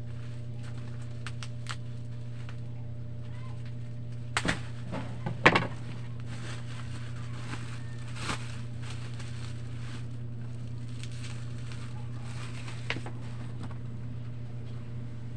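Black plastic bubble wrap crinkling and rustling as a camera is unwrapped by hand, with a cluster of sharp crackles about four to six seconds in and a couple of fainter ones later, over a steady low hum.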